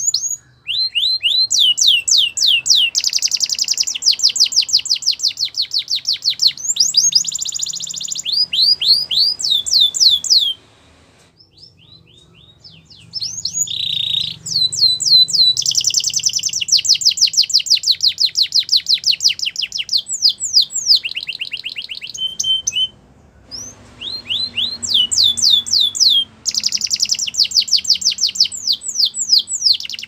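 Canary singing: long, fast trills of rapidly repeated notes, each sweeping down in pitch, with the bird switching from one trill to the next and pausing briefly twice.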